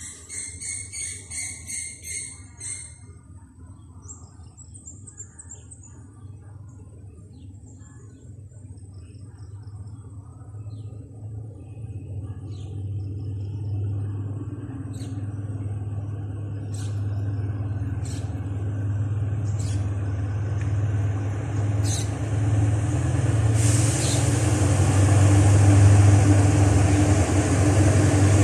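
Diesel locomotive of an approaching express train, its engine rumble growing steadily louder, with wheel-on-rail hiss building over the last few seconds. A short run of rapid high chirps at the start.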